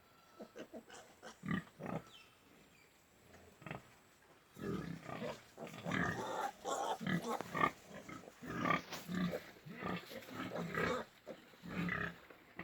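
Yorkshire pigs calling in short, repeated bursts. The calls are sparse for the first few seconds, then come thick and almost without pause from about four and a half seconds in.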